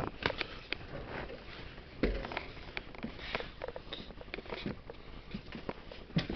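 Handling and movement noise as a camera is carried about in the dark: scattered soft clicks, rustles and light knocks, with a dull thump about two seconds in and a sharper click near the end.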